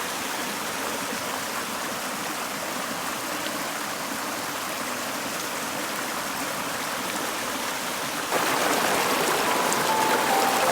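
Mountain stream flowing, a steady rush of water. About eight seconds in it abruptly gets louder, and a few soft notes of music come in near the end.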